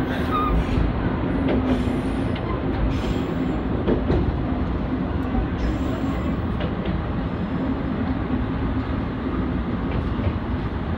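Moka Railway diesel railcar running along single track, heard from inside at the front of the car: a steady engine drone over wheel rumble, with a few rail-joint clicks.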